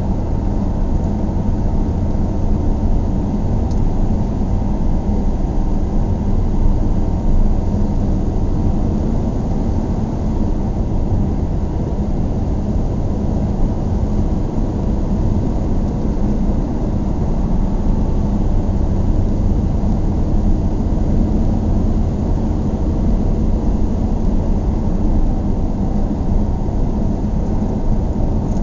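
Steady low road and engine noise of a car driving along a paved road, with no sudden events.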